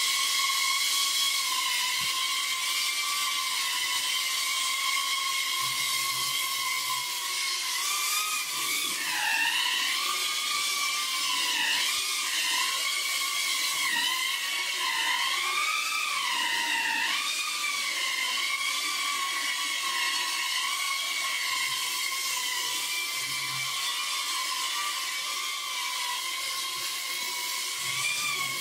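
FPV drone in flight: its motors and propellers give a steady high whine that swoops up and down in pitch with the throttle, most of all through the middle.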